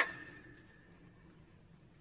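The end of a single red muntjac (barking deer) bark fading out in the first half-second, a faint high note trailing on for about a second after it; then a quiet pause between barks.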